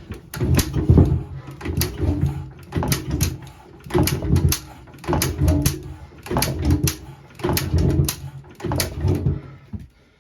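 A 1947 JAP 5 single-cylinder engine on a Clifford rotovator being turned over by hand again and again, about once a second, without catching. It has not been run for years and is hard to start.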